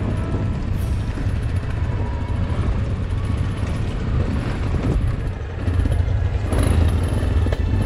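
Adventure motorcycle riding slowly down a loose dirt trail: a steady low rumble of engine and tyres.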